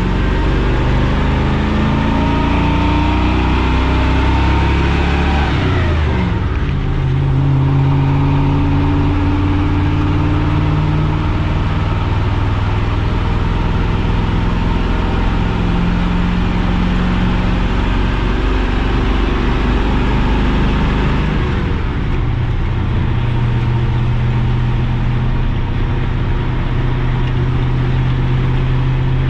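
Chevrolet K30 pickup's 6.0-litre Vortec V8 pulling a heavy trailer through a four-speed manual gearbox. The engine climbs in pitch, drops sharply at a gear change about six seconds in, climbs slowly through the next gear, and drops again at a second shift a little past twenty seconds.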